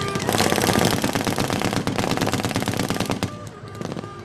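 Machine-gun fire: rapid, overlapping shots, thinning out about three seconds in to scattered, quieter shots.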